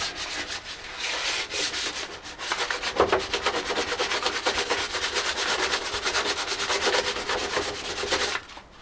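Wet-and-dry abrasive paper rubbed back and forth over body filler on a car bumper, in fast, even strokes that stop abruptly near the end.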